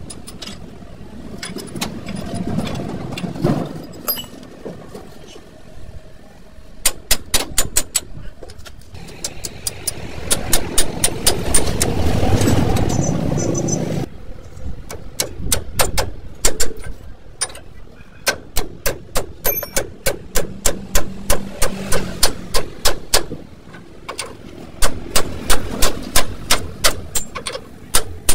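A hammer striking steel at a truck's leaf spring hanger: sharp metallic blows in runs of about three or four a second, starting about seven seconds in. A low rumble swells and fades about ten to fourteen seconds in.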